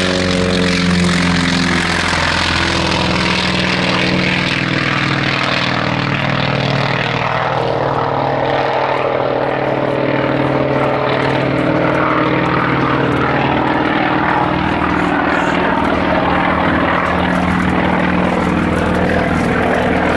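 A CAC Wirraway's 600-horsepower radial piston engine and propeller drone loudly and steadily as the aircraft flies overhead. The pitch shifts a little about midway through.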